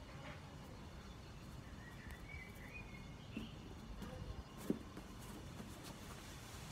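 Quiet outdoor background with a bird chirping a few times about two to three seconds in. Soft shuffling and knocks follow as a person steps into place, then one sharp knock a little past halfway, the loudest sound.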